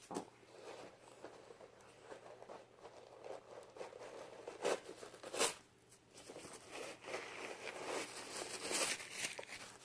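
Shoe box and packaging being handled: a few sharp knocks, then packaging rustling and crinkling from about seven seconds in.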